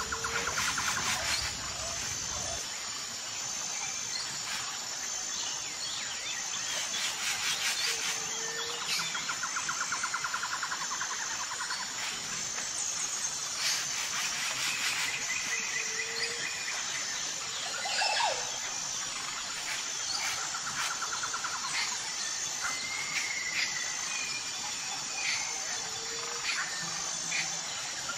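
Birds calling and chirping, with short trills, over a high thin insect trill that pulses on and off steadily. A few short low calls come every several seconds.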